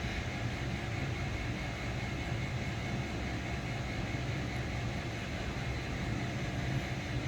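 Steady low mechanical hum of background machinery, with no distinct knocks or clicks.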